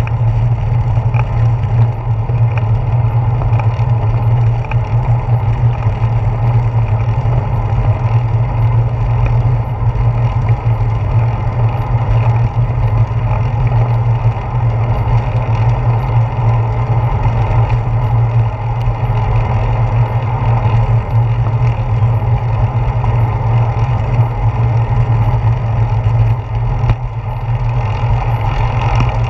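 Steady wind rumble and road vibration on a handlebar-mounted GoPro Hero 4's microphone while riding a bicycle at speed along a paved path. The noise is loud and low throughout.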